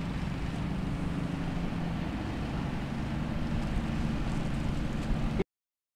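Formula Offroad hillclimb buggy's engine running hard at a steady pitch as it climbs a steep dirt slope. It cuts off suddenly near the end.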